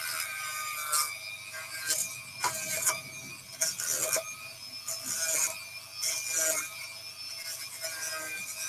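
Handheld Dremel-type rotary tool running with a steady whine, its sanding bit grinding against a cork fishing float in short, irregular scratchy bursts about a second apart.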